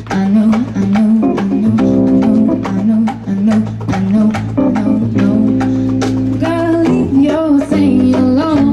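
Live jazz band playing: a female vocalist singing over held keyboard chords, electric bass and a drum kit keeping a steady beat.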